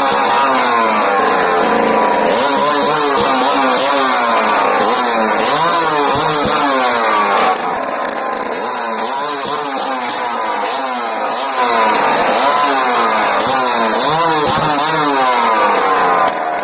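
Chainsaw engine revving up and down over and over, each rev a rising and falling whine. The sound steps quieter about halfway through and louder again a few seconds later.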